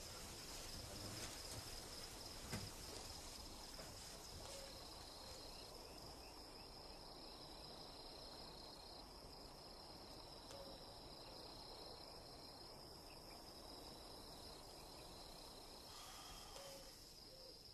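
Faint night ambience: a steady, high-pitched drone of crickets, with an owl hooting softly a few times.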